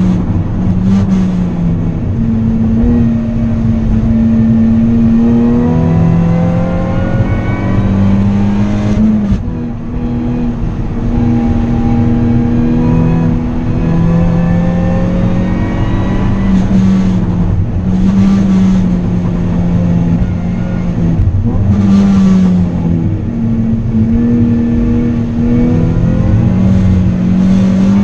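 Nissan 370Z race car's 3.7-litre V6, heard from inside the cabin at racing speed. The engine note climbs and drops again and again as it runs through the gears and brakes for corners.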